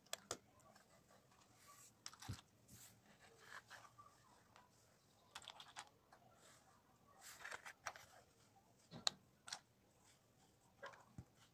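Faint, scattered clicks and taps of plastic LEGO bricks being handled and pressed together on a baseplate, with the sharpest click about nine seconds in.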